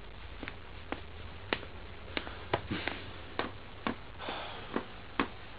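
Irregular light taps and clicks, one or two a second, with a couple of brief rustles: a book, pen and papers being handled on a wooden desk.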